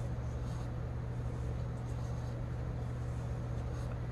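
Small electric motor of a tumbler cup turner humming steadily as it rotates a tumbler.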